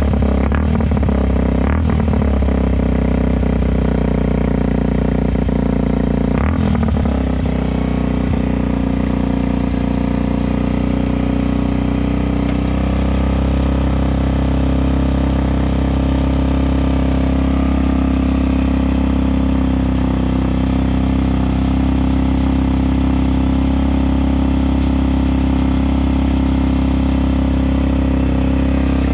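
Yamaha XT125R's single-cylinder four-stroke engine running steadily through a loud aftermarket stainless silencer, warming up from a cold start on a little manual choke. There is a brief break in the note about six to seven seconds in.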